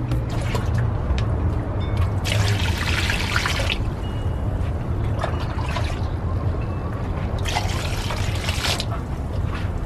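Water poured from a small cup into a wooden bowl of tomatoes, garlic and ginger, splashing in two pours of about a second each, the first around two and a half seconds in and the second near the end.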